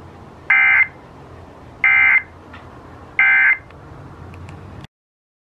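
Emergency Alert System End of Message (EOM) tones: three short identical bursts of SAME data warble, about a second and a half apart, marking the end of an emergency alert broadcast. Low hiss and hum fill the gaps, and the audio cuts off abruptly near the end.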